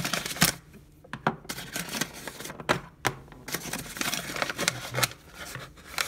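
Kraft-paper-wrapped package handled and turned over in the hands: paper rustling and rubbing against skin and the bench, with scattered taps and knocks, the sharpest about half a second in.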